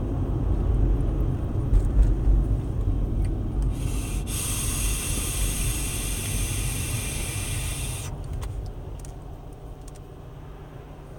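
Low road rumble inside a moving car, with an electronic vape mod's coil hissing for about four seconds in the middle during a long draw. The rumble grows quieter near the end.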